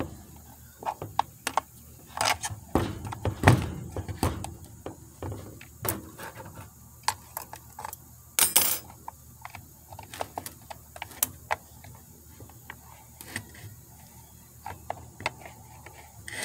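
A bent steel wire clicking, tapping and scraping inside a Craftsman chainsaw's plastic fuel tank as it is worked through the filler neck, with the saw knocked about on concrete. There is a louder knock about three and a half seconds in and a short hissing scrape about eight and a half seconds in.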